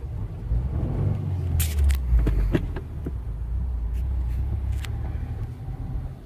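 2015 Subaru WRX driving along, with a steady low rumble of road and engine noise and a few short clicks.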